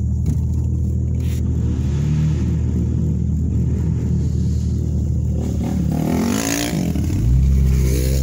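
A vehicle's engine runs steadily at low revs while a quad bike's engine comes past close by, its pitch sliding up and down and loudest about six to seven seconds in. About seven seconds in, the vehicle's own engine revs up.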